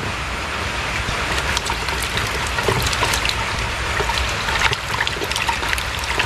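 Small catfish splashing and flapping in a bucket of water as they are shaken out of a wire-and-mesh spring fish trap, with many quick splashes and clicks from the trap frame, over a steady hiss of rain.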